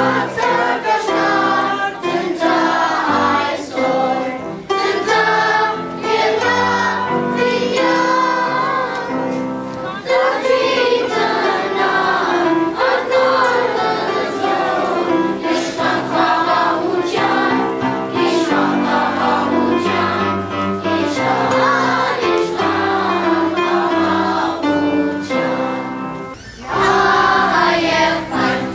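Children's choir singing a song together; near the end the sound breaks off briefly and another choir's singing takes over.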